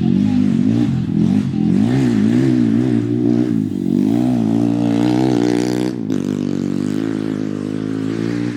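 Off-road race vehicle's engine revving, its pitch swinging up and down about once a second, then climbing and holding a steadier note after a brief dip about six seconds in.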